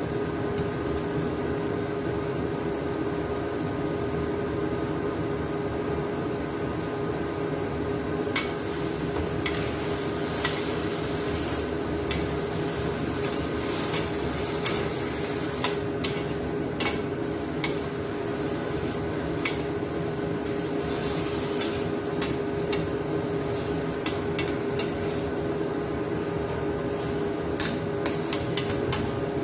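Metal spatula stirring sliced bamboo shoots in a stainless-steel wok, with irregular scrapes and clinks against the pan from about a third of the way in, over the sizzle of the soy-sauce braise and a steady hum.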